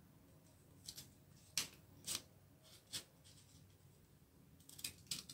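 Small orange children's scissors snipping through a strip of paper in several short, separate cuts, with a pause of about two seconds before the last few.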